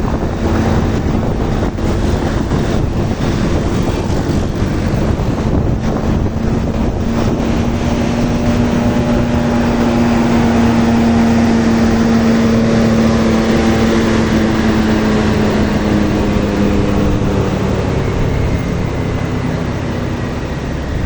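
A tour bus's engine droning with a steady low hum that swells and then fades, loudest about halfway through, over wind buffeting the microphone.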